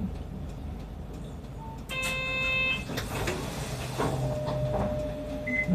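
Low, steady running noise of a route bus, with one short horn-like beep about two seconds in, a single steady pitch lasting under a second.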